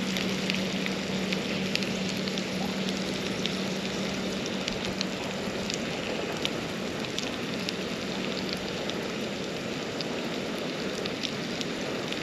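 Sausages sizzling in a frying pan over a small canister camping gas stove: a steady sizzle with scattered spits and pops. A low steady hum fades away around the middle.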